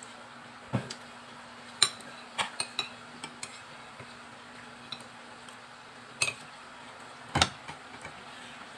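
Metal fork and spoon clinking and scraping against a ceramic plate while eating, in scattered sharp clicks. The two loudest come about two seconds in and near the end.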